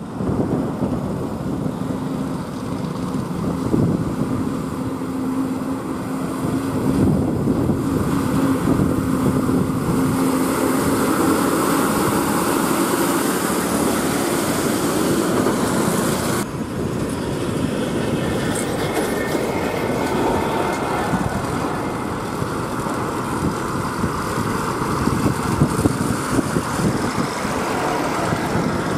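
Loaded heavy trucks passing close by on a highway: diesel engines running, with tyre and road noise. A steady engine hum runs through the first half, and the sound changes abruptly a little past halfway.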